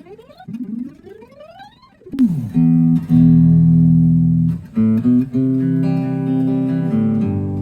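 Silvertone 1446 electric guitar being played: a run of quick upward slides, then a slide down about two seconds in into loud ringing chords and single notes.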